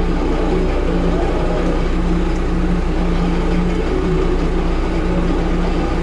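Heavy vehicle engine idling: a steady, low, even hum that does not change.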